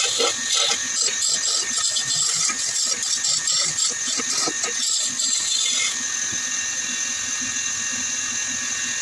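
Wood lathe spinning a wooden handle blank while a hand chisel scrapes and cuts into it in uneven bursts. About six seconds in the cutting stops, leaving the lathe motor's steady hum.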